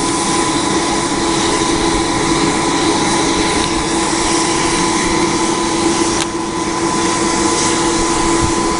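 Steady whine of an air blower forcing air into a bloomery furnace, holding one even pitch, with a single sharp click about six seconds in.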